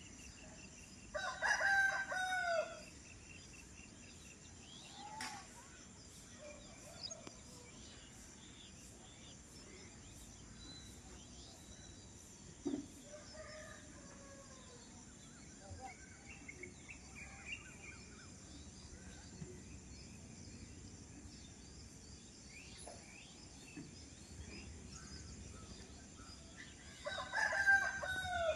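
A rooster crowing twice, once about a second in and again near the end, with faint chirps and calls of small birds in between.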